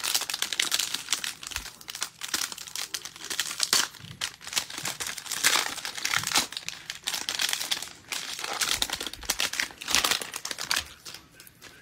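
A foil 2022 Panini Mosaic Baseball hobby pack being torn open and its wrapper crinkled by gloved hands, in irregular bursts of sharp crackling that die down near the end.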